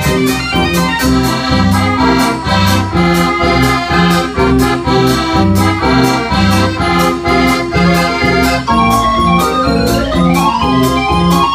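Dutch street organ (draaiorgel) playing a Russian medley: pipe melody over an oom-pah bass, with drum beats keeping a steady rhythm. A rising glide sweeps up through the melody near the end.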